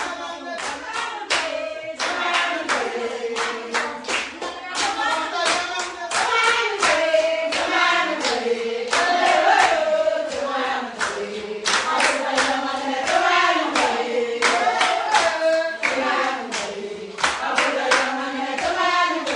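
A group of women singing together, with steady rhythmic hand-clapping keeping the beat.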